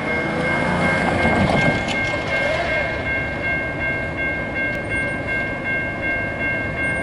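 Railroad grade-crossing warning bell ringing steadily as the crossing lights flash, with a car driving past through the crossing in the first two seconds.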